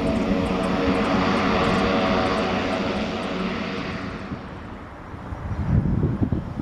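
Pilatus PC-12's single PT6A turboprop at takeoff power: a loud propeller drone with steady tones over a rushing hiss, fading away about four seconds in. An uneven low rumble of wind on the microphone follows.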